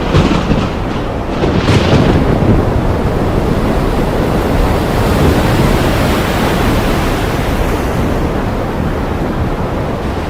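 Heavy rain falling steadily, a dense hiss with a deep rumble underneath and a few brief swells in the first two seconds.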